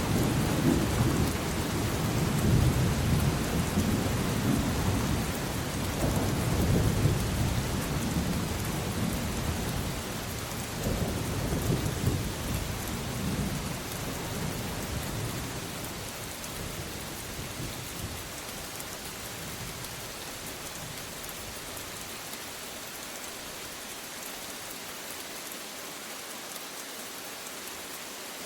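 Thunderstorm: steady rain with rolling low thunder that dies away over the first two-thirds, leaving only the hiss of rain.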